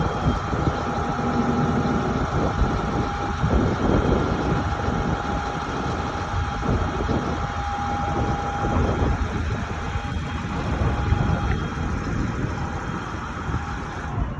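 Mitsubishi 6M60 inline-six diesel engine idling with a rough, irregular knock, the fuel knock that goes with its white smoke.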